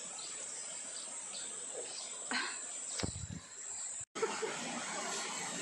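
Steady high-pitched insect chorus of summer, with a brief low rumble about three seconds in; the sound drops out for an instant just after four seconds.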